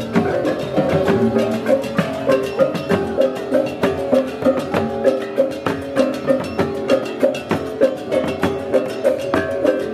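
Balinese gamelan music, the kind played for ogoh-ogoh processions: pitched metal gong-chimes and percussion struck in a fast, steady rhythm.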